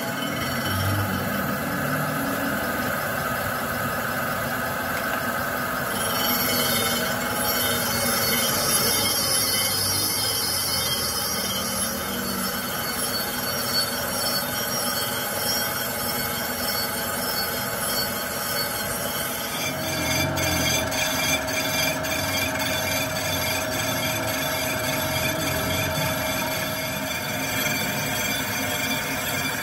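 Crankshaft grinding machine grinding a crankshaft journal under a coolant stream: a steady machine hum with grinding hiss and a thin whine. The tone shifts about six seconds in and again about twenty seconds in, when a new steady whine comes in.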